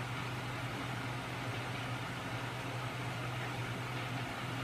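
Homemade magnet engine running on a small 12 V electric motor, its crankshaft and flywheel spinning with a steady mechanical whir over a low hum.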